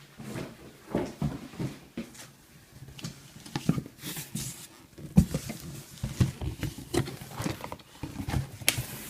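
Cardboard shipping box being handled and opened by hand: irregular knocks, scrapes and rustling, with a couple of short scratchy rasps as flaps and packing are pulled.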